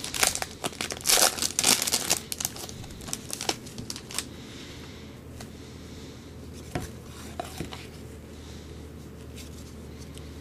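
Foil trading-card pack wrapper being torn open and crinkled by hand, a dense run of crackling and tearing for the first three seconds or so. It then quiets to light handling of the card stack, with a couple of soft clicks.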